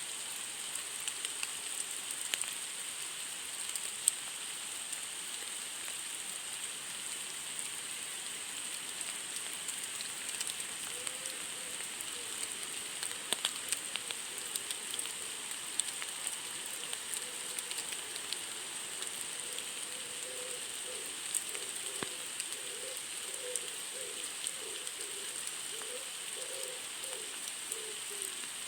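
Steady rain falling on a surface, an even hiss dotted with the small ticks of individual drops. From about halfway, a faint wavering low tone comes and goes in short pulses under the rain.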